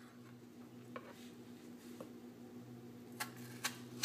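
Kitchen knife cutting the rind off a cantaloupe slice and tapping on a wooden cutting board. There are light clicks about once a second, two louder ones near the end, then a sharp knock as the blade comes down on the board. A faint steady hum runs underneath.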